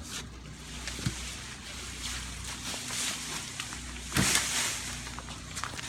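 Cut tree branches being moved and dragged: a leafy rustle, a click about a second in and a louder rustle with a thump about four seconds in, over a low steady engine hum.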